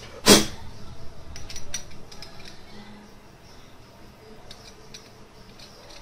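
Small metal and plastic blender-motor parts being handled on a workbench while a replacement drive coupling is tried on the motor. There is one sharp knock just after the start, then scattered light clicks and scrapes.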